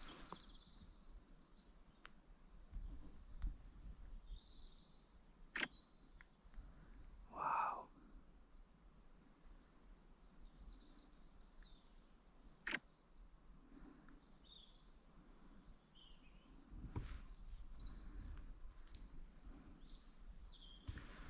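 Faint outdoor birdsong: small high chirping notes repeating throughout. Two sharp clicks come about seven seconds apart, and a low wind rumble begins near the end.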